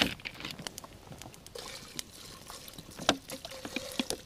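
Water being poured in a thin trickling stream into a cooking pot of chopped wild garlic stalks, with a few small knocks; the water is added so the garlic can be stewed into a broth.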